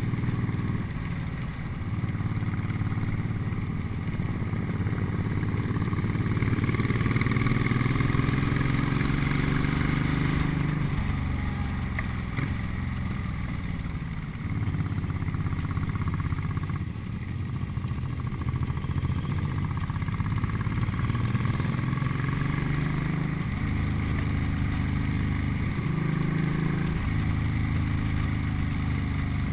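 Cruiser motorcycle engine running under way, with the note dropping and climbing several times through the bends as the rider changes throttle and gear. Wind rushes steadily over the microphone.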